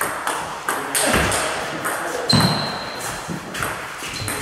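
Table tennis rally: the plastic ball clicking off rubber-faced bats (DHS Hurricane 8) and bouncing on the table several times, with footwork on the hall floor and the loudest knock a little over two seconds in, followed by a short high squeak.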